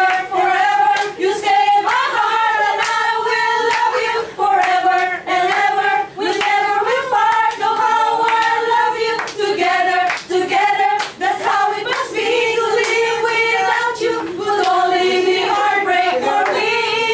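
A small group of mostly women singing a song together, one melody line, with sharp hand claps along the way.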